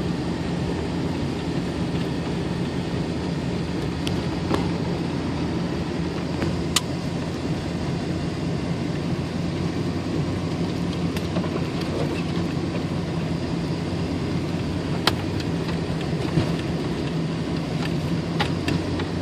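Car cabin noise while driving on snowy roads: a steady low engine hum under road and tyre noise, with a few faint clicks.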